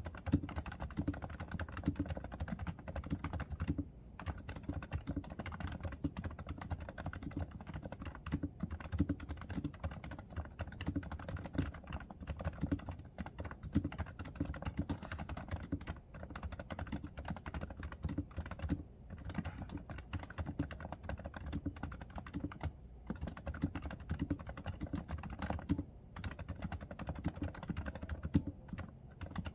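Realforce R2 silent keyboard with 30 g Topre electrostatic capacitive switches being typed on steadily: a fast stream of dull, low keystrokes, with a few brief pauses.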